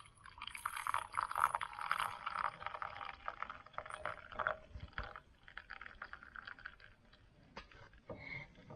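Just-boiled water pouring from a camp kettle into a coffee mug for about seven seconds. It is followed near the end by a few light clicks and knocks as the kettle is set down.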